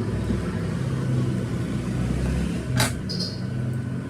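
A steady low rumble, like a running motor or passing traffic, with one sharp click about three seconds in, followed by a brief high ring.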